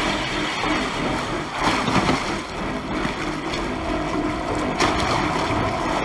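Water splashing and churning at the surface beside a boat as a shark strikes at a bait float, with louder surges of splashing about two seconds in and again near the end.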